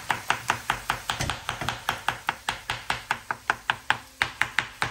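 Chef's knife rapidly chopping soft roasted, skinned aubergine on a wooden chopping board: an even run of quick knocks of the blade on the wood, about five a second.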